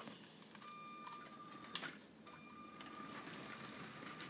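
Small electric motor of a Lego toy train whining steadily as the train moves off. The whine breaks off at a soft click about two seconds in, then starts again.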